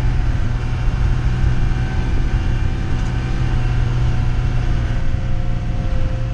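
Minibus engine and drivetrain running under load on a rough dirt road, heard from inside the passenger cabin: a steady low drone with a faint whine above it.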